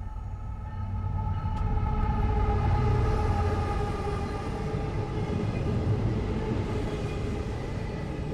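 Diesel freight train passing close by: the CSX locomotive goes past, then double-stack container well cars roll by with a heavy rumble that is loudest about three seconds in. A faint steady whine sinks slowly in pitch.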